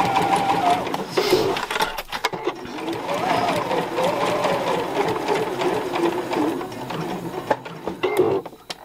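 Domestic sewing machine sewing a straight-stitch seam at a slow, steady pace, its motor whine rising and falling in pitch with the speed. It pauses briefly about two seconds in and nearly stops just before the end.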